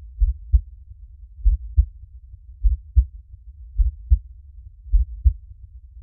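Slow heartbeat, each beat a double thump (lub-dub), five beats at a little under one a second, with a faint low rumble between them.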